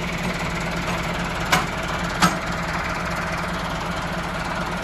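Massey Ferguson 385 diesel tractor engine idling steadily, with two sharp knocks about a second and a half and two seconds in.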